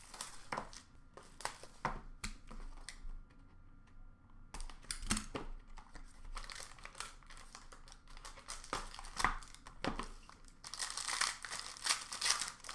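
Plastic wrappers crinkling and tearing as a box of hockey cards is opened, with scattered taps and rustles from handling the cardboard box. A denser run of crinkling comes near the end.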